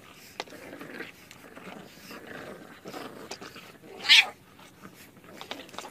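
A pet animal gives one short, loud, rising cry about four seconds in, among faint shuffling and small knocks.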